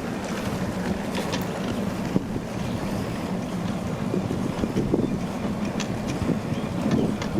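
Steady road-traffic noise of vehicle engines and tyres, with wind buffeting the microphone.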